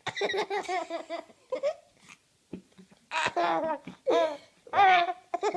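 Eight-month-old baby laughing in bursts of high-pitched giggles: a run of about a second at the start, then three more bursts in the second half, in response to burp sounds.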